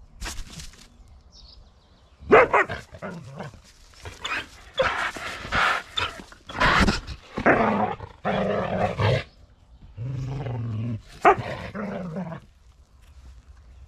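A dog barking and growling in a run of loud, irregular bursts, with one unbroken growl of about a second late in the run.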